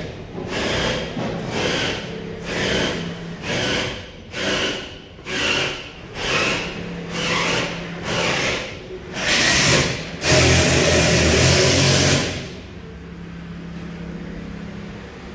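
Rhythmic rasping strokes, about one a second, then a loud continuous hiss lasting about three seconds, over a steady low hum.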